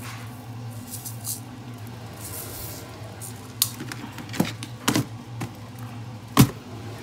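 Kitchen handling: a few sharp knocks and clicks over a steady low hum. They come in the second half, and the loudest is near the end.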